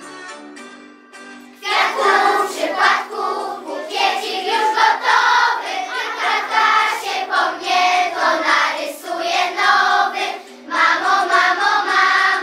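A group of young children singing a song together over instrumental accompaniment. The accompaniment plays alone at first, and the voices come in loudly after a second and a half or so.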